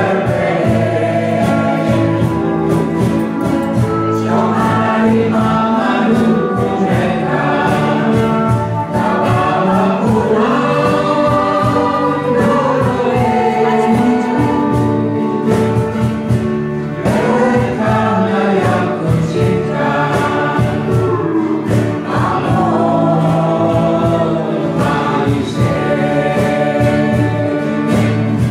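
A mixed Indo choir singing a song together, accompanied by a small band of guitars, bass guitar and percussion keeping a steady beat.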